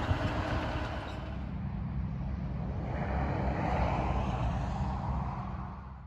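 New Holland 7840 tractor running steadily under load as it pulls a power harrow and combi seed drill across the field. The sound fades out at the very end.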